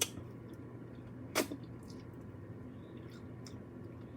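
Eating sounds from picking meat off jerk rib bones: two short clicks about a second and a half apart, otherwise quiet room tone.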